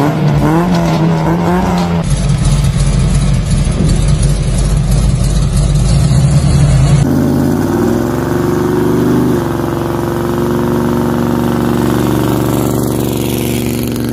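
Car engines in a run of short driving clips. The first seven seconds are a steady engine sound. Then an engine revs up, rising in pitch, and settles into a steady drone.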